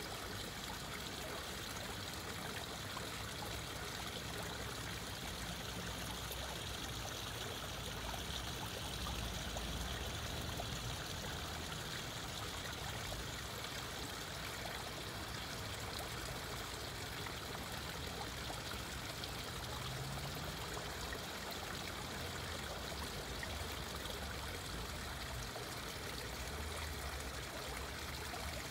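Small waterfall of thin streams falling from a stone wall and splashing steadily into a pond.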